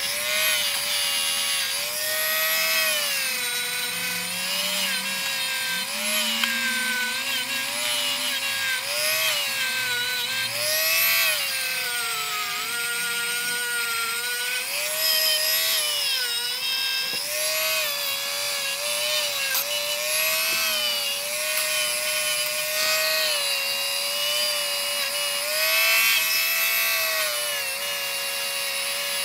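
Handheld rotary tool with a small bit running against a steel monkey wrench to remove rust. The motor's high whine wavers up and down in pitch throughout, with a rough scraping on top.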